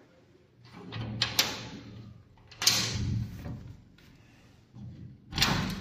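A door's barrel bolt slid back and the door opened. The sharp clicks and scraping come in three bursts: about a second in, around three seconds in, and loudest near the end.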